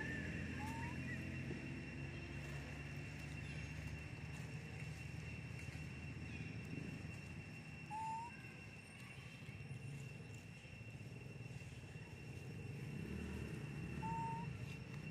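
Outdoor forest ambience: a steady high-pitched drone and a low hum, with three short rising chirps a few seconds apart, the middle one the loudest moment.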